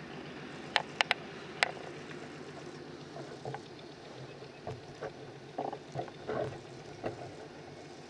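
Pratt & Whitney radial engine of a restored Zero fighter running at low power while taxiing, a steady, uneven low rumble heard from across the apron. Four sharp clicks come close together about a second in, the loudest sounds, and softer knocks follow a few seconds later.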